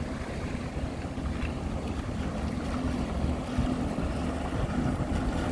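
Yamaha jet ski's engine running steadily under way, with the hiss and splash of its spray and wake. Wind buffets the microphone, and the engine grows slightly louder toward the end as the craft comes closer.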